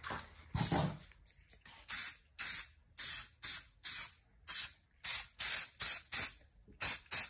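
Aerosol can of Loctite multi-purpose spray adhesive spraying in a quick series of short hissing bursts, about a dozen at roughly two a second.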